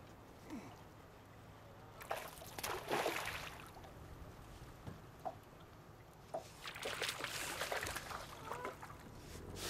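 Water sloshing and splashing against the aluminum hull of a jon boat in two short spells, with a few small knocks in between.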